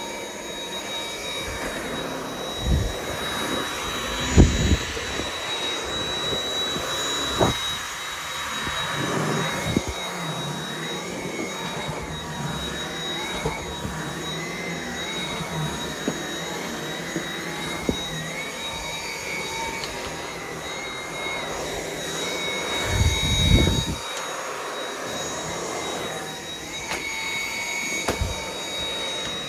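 Dyson V7 cordless stick vacuum running with a steady high whine, its airflow tone wavering as it is worked across the floor, with several thuds along the way.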